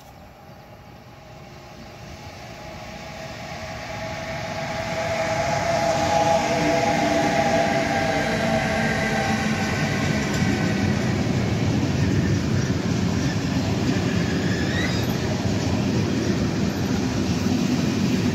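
Electric freight train passing close by: the sound grows over the first five seconds or so as the locomotive approaches, with a few steady tones as it goes by. Then the steady noise of the wagons, loaded with lorry semitrailers, rolling past on the rails.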